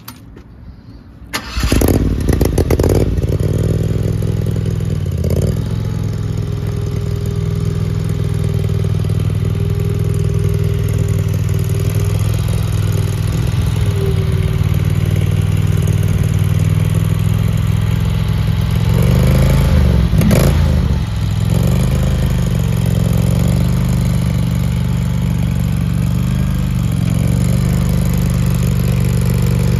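A 16.5-horsepower gasoline engine on a small skid steer loader starts about a second and a half in and then runs steadily. Its pitch swings up and down briefly about two-thirds of the way through.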